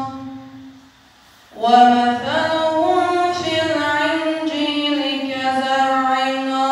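A boy's solo Quran recitation (tilawah) through a handheld microphone. A long held note ends at the start and fades away; after a pause of about a second a new melodic phrase begins, with sliding ornaments, and runs on.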